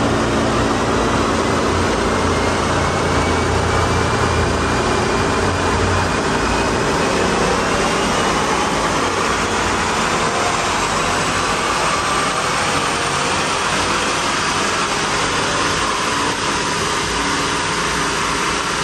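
All-wheel-drive police interceptor car held at full throttle on a chassis dynamometer during a power run. The engine and drivetrain whine climbs slowly and steadily in pitch as the rollers speed up.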